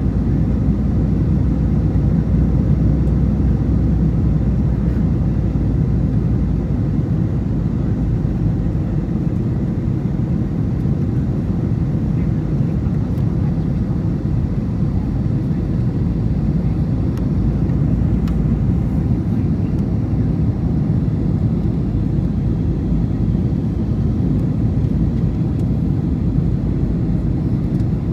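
Steady cabin noise inside an Airbus A321 on its approach: the even rumble of airflow and engines, strongest in the low range, heard from a window seat over the wing. A deep hum underneath eases about six seconds in.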